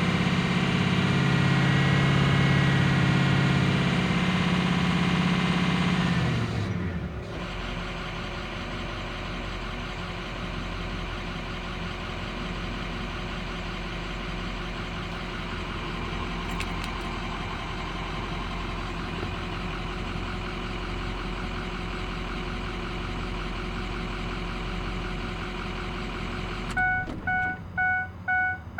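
Ford 6.0 L Power Stroke diesel engine running steadily, then shut off about six seconds in, winding down in pitch. A lower steady hum remains after it. Near the end a vehicle warning chime starts beeping rapidly, about two beeps a second.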